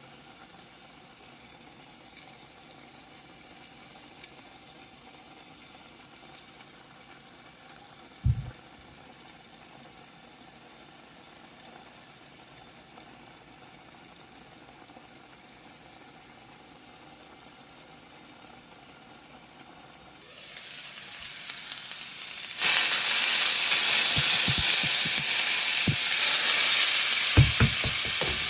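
Quiet room tone with a single low thump about eight seconds in. About twenty seconds in a sizzle rises, then suddenly turns loud as food fries in a hot pan, with a few knocks of a utensil stirring.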